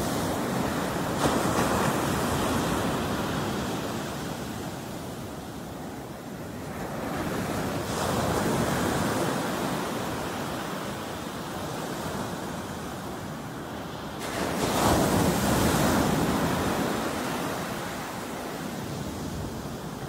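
Ocean surf breaking and washing up a sandy shore. It comes in three swells: about a second in, around eight seconds in, and loudest about fifteen seconds in.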